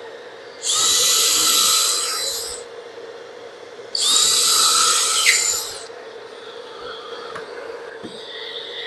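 An electric power tool's motor runs twice for about two seconds each time. Its high whine rises to speed at the start of each run.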